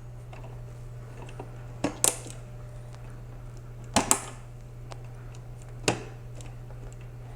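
Push pins of a stock Intel CPU cooler snapping into the motherboard's mounting holes as each corner is pressed down: sharp clicks, a close pair about two seconds in, another pair about four seconds in and a single one near six seconds, over a low steady hum.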